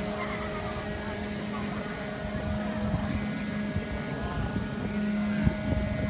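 JS Izumo's deck elevator machinery humming steadily as the platform rises. Over it, a high warning tone sounds for about a second, then stops for about a second, again and again while the elevator is moving. A crowd murmurs underneath.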